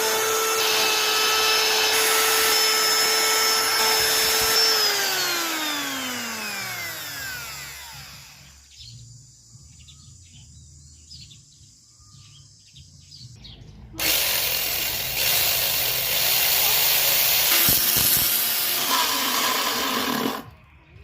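A small high-speed electric power tool runs with a steady whine, then is switched off and its pitch falls away as it spins down. After a quiet stretch with a few light knocks, a loud rough hissing, grinding noise starts about two-thirds of the way in and cuts off suddenly near the end.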